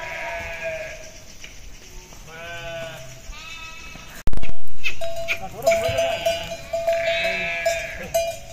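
A flock of sheep bleating, several wavering calls overlapping one another, with a sudden loud thump about halfway through.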